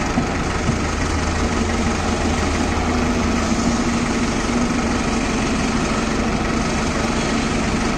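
Diesel engines of a Hyundai crawler excavator and a farm tractor running steadily at a low, idling pace. The engine note shifts about three seconds in.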